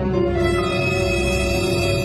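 Dark, eerie background music with sustained tones over a low pulsing beat.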